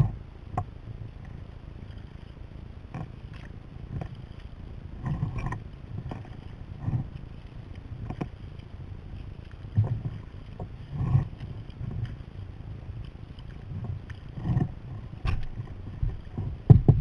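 Kayak paddle strokes: irregular splashes and knocks of the paddle and water against the hull, about one a second, over a steady hiss of water and wind.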